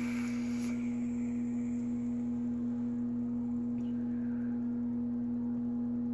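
A steady low electrical hum throughout. In the first second there is a brief hiss from a vape's dripping atomizer being fired and drawn on, then it stops.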